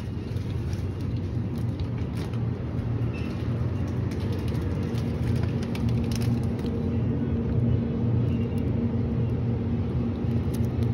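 Steady low rumble of a convenience store's background hum, with a faint steady tone coming in about halfway and scattered light clicks.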